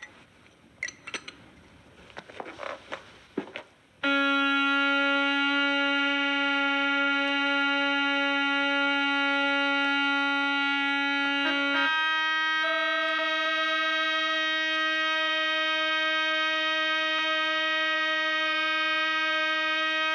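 Organ sounding a loud, steady held note with rich overtones that sets in suddenly about four seconds in, then moves up to a slightly higher held note about twelve seconds in. Before it, a few faint clicks and knocks.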